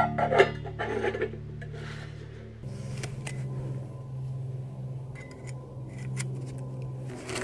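EPIgas titanium pots and their folding wire handles clinking and scraping together as they are nested, during the first second or so. Background music with steady low notes runs underneath and carries on after the clinks stop.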